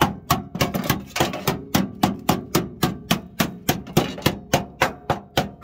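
A hammer knocking on a newly welded steel floor panel of a Ford Cortina Mk4 footwell, about four even strikes a second, each with a short metallic ring. The knocks are meant to show how solid the repaired floor is.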